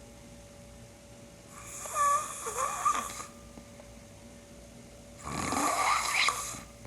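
A man snoring in his sleep: two snores about three and a half seconds apart. The first has a squeaky, sliding pitch; the second is longer and deeper. The uploader takes this snoring for borderline sleep apnea.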